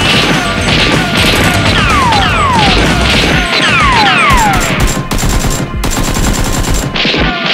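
Rapid-fire machine-gun sound effects standing in for Nerf blasters firing, in dense bursts about four to seven seconds in, over action background music with a falling sweep repeating about twice a second.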